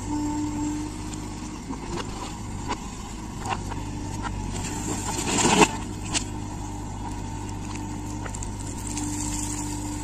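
Diesel engines of a JCB 3DX backhoe loader and a Mahindra tractor running steadily, with knocks and scrapes from the digging bucket. About five and a half seconds in there is a short loud rush as a bucketful of soil drops into the tractor's trolley.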